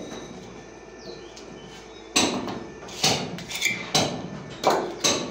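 A series of sharp knocks from a metal trowel working mortar against the wall and box, about six in three seconds starting about two seconds in, one with a brief metallic ring.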